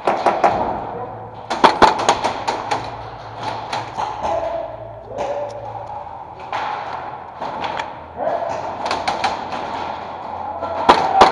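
Airsoft guns firing in several bursts of rapid sharp snaps, with gaps of a few seconds between them, over a steady background hiss.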